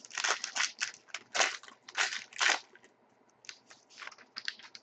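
Hockey card pack wrapper crinkling and tearing as the pack is ripped open by hand: a quick run of short crackly rustles that thins out after about three seconds.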